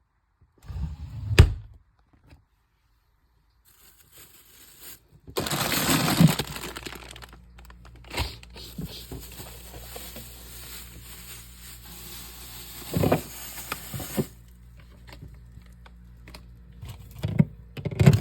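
Things being handled: a sharp knock about a second in, then from about five seconds a long stretch of rustling and crinkling with a few knocks over a low steady hum.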